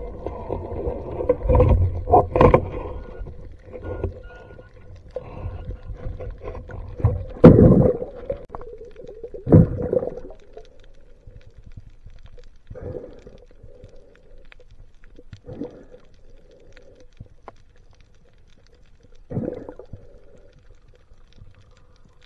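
Muffled underwater sound picked up by a camera in its waterproof housing: water swishing and rushing past in irregular bursts, loudest in the first few seconds and again around eight and ten seconds in, then quieter with a few short swishes over a faint steady hum.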